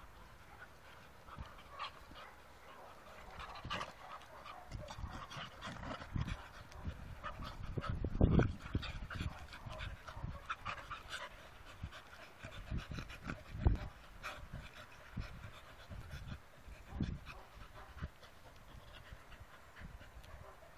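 Two dogs, a black mixed-breed and a cocker spaniel, panting and scuffling as they play-wrestle on grass. Scattered soft thumps run through it, the loudest about eight seconds in and again near fourteen seconds.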